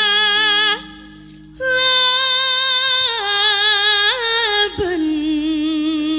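A sinden, a female Javanese singer, singing a drawn-out phrase of a Madurese song in long held notes with wide vibrato over low held accompaniment tones. The voice breaks off briefly about a second in.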